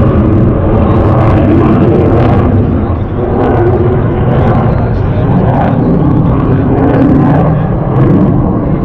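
Loud, steady aircraft engine noise, with people's voices mixed in.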